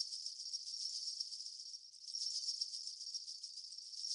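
A steady, high-pitched, very rapid rattling hiss, dipping briefly about two seconds in.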